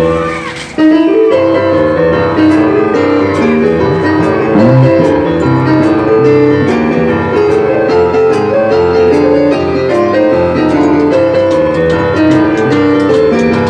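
Boogie-woogie piano music starting up about a second in, with a steady ticking beat joining a little later.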